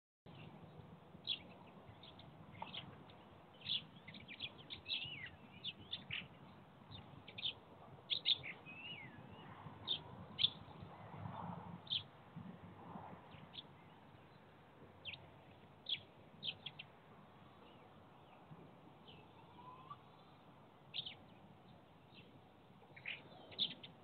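Small songbirds chirping and trilling: many short, sharp high calls in quick succession, with a few downward-sliding notes. The calls are busiest in the first half and thin out later.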